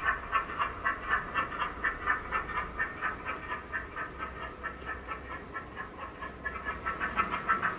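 Recorded steam-locomotive sound of a GWR 94XX pannier tank, played by a ZIMO sound decoder through the OO gauge model's small speaker: exhaust chuffs at a steady beat of about three a second, thin and without bass. The chuffs fade somewhat in the middle and grow louder near the end.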